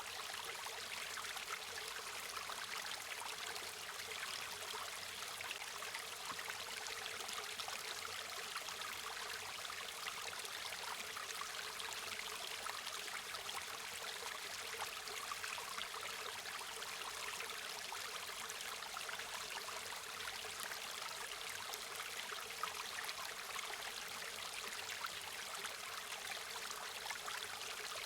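River water flowing steadily over stones, an even rushing and babbling with no breaks or changes.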